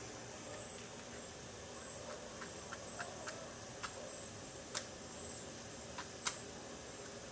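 Bonfire crackling: irregular sharp pops over a steady hiss, the loudest a little before five seconds in and just after six.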